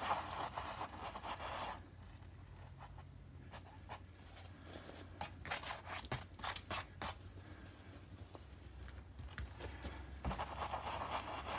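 A dry paintbrush scrubbing paint onto a painting in short rubbing strokes. The scratchy brushing stops about two seconds in, a few light taps and clicks follow, and the brushing starts again near the end.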